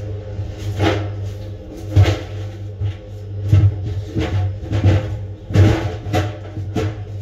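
Background music with drum and percussion hits over a steady low drone.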